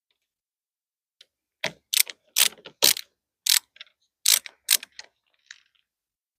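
A hand screwdriver turning a small screw into a metal door-lock strike plate, making a string of about nine sharp ratchet-like clicks, roughly two a second, as the screw is worked in to make it catch.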